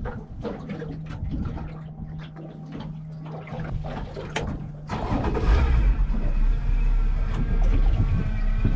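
Boat engine running at idle with a few light clicks, then opened up about five seconds in to a louder, steady low rumble as the boat gets under way.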